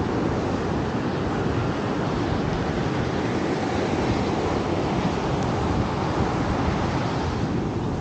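Ocean surf washing up on a sandy beach, a steady rush of waves, with wind on the microphone.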